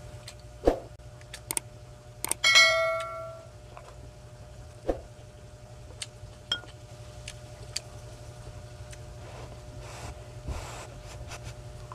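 Eating-utensil sounds: a spoon clicking against the dishes several times, with one clear ringing clink about two and a half seconds in that dies away over about a second.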